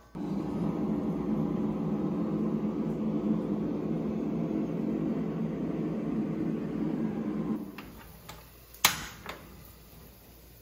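A steady appliance-like hum that starts abruptly and cuts off about three-quarters of the way through. Then come a couple of clicks and one sharp snap as the knob of a portable butane camping stove is turned and its igniter lights the burner.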